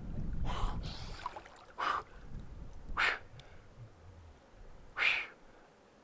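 A man's sharp breaths as he lowers himself into icy lake water, four of them a second or two apart: the gasping of cold shock.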